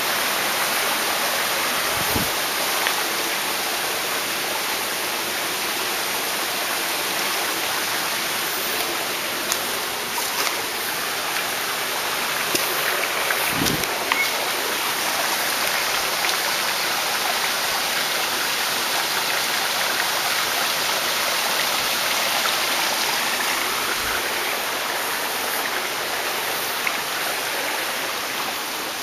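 Small bush stream running over rocks: a steady rush of water. A few soft low thumps are heard about 2, 14 and 24 seconds in.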